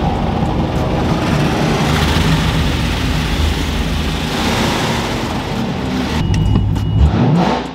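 Spray jets of a touchless automatic car wash pounding the car, heard from inside the cabin over the steady low idle of a Dodge Challenger Hellcat's supercharged 6.2-litre HEMI V8. The spray stops about six seconds in, leaving the engine rumble.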